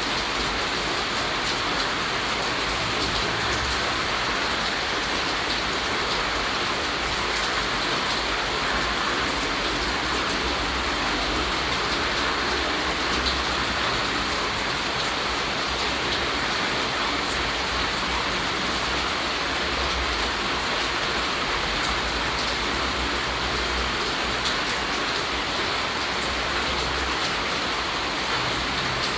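Steady rainfall, a dense patter of raindrops landing on surfaces, with fine individual drop ticks through it and no change in strength.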